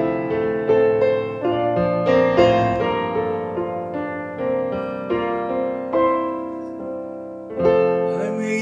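Solo piano introduction to a slow hymn: a gentle melody over chords, each note struck and left to ring and fade.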